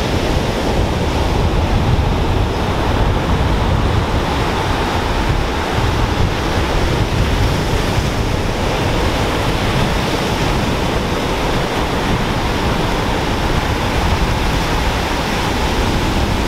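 Ocean surf breaking and washing up a sandy beach, a steady rushing noise, with wind rumbling on the microphone.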